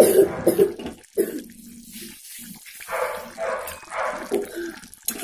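Chickpea curry boiling in a kadai, thick bubbles plopping irregularly.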